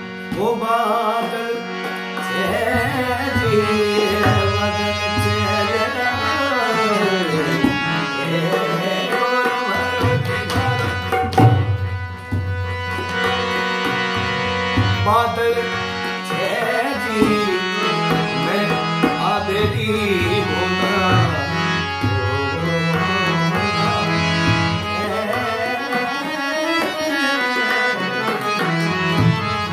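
A man singing a melodic vocal line over the steady reed tones of a harmonium, with a dholak drum beating out the rhythm.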